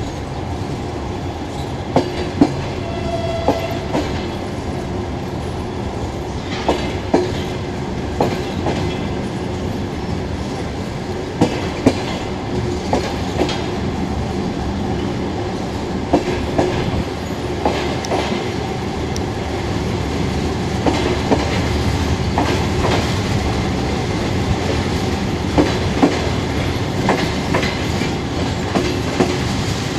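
Passenger train carriage rolling along the track: a steady rumble with irregular clacks as the wheels cross rail joints and points.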